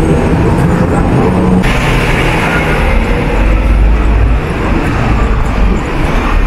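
Busy city street traffic, with a double-decker bus running close by. A deep engine rumble builds from about three seconds in as the bus passes.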